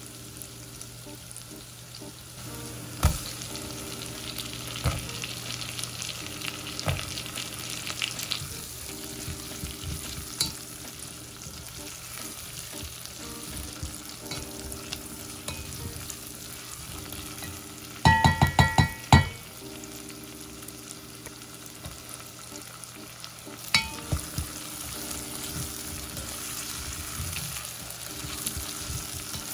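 Food sizzling in a pan on the stove while it is stirred, with small scraping clicks throughout. About 18 seconds in there is a quick run of loud, ringing clinks, and another single clink near the end.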